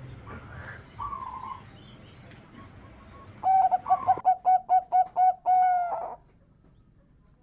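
Zebra dove (perkutut) cooing. A soft coo comes about a second in, then past the halfway point a loud, rapid string of short staccato coos, about five a second, ends in one longer drawn-out note.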